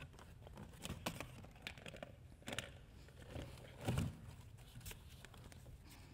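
Rustling and crinkling of cloth and props being pulled out of a cardboard box, with scattered light clicks and one louder thump about four seconds in.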